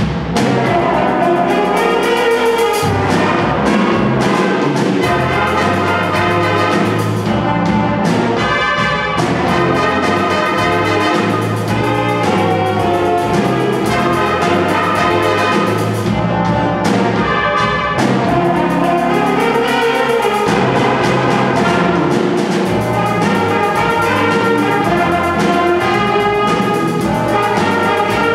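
School jazz big band playing live: saxophones, trombones and trumpets with drum kit, loud and continuous.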